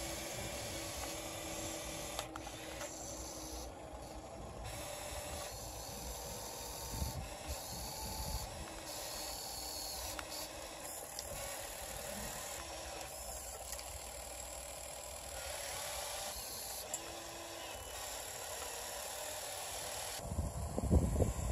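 Electric drive motors of a Huina radio-controlled model excavator whining in short runs that start and stop every second or two as the boom, arm and bucket dig and swing. Wind buffets the microphone near the end.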